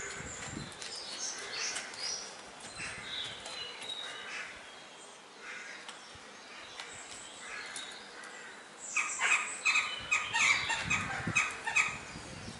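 Wild birds calling, with a loud run of quick, harsh calls from crow-family birds starting about nine seconds in.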